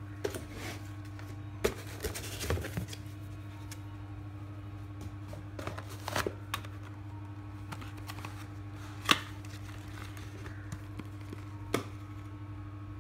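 Hands unpacking a cardboard box with foam packing: scraping and rustling of foam and cardboard, broken by scattered sharp clicks and knocks, the loudest about nine seconds in. A steady low hum runs underneath.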